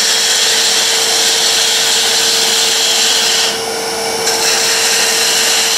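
Wood lathe running at high speed with a steady hum while a turning tool cuts the spinning wood spindle, giving a continuous high shaving hiss. This is the smoothing cut that brings a walking-cane handle down toward its final diameter. The cutting hiss drops out for under a second a little past the middle, then starts again over the lathe's hum.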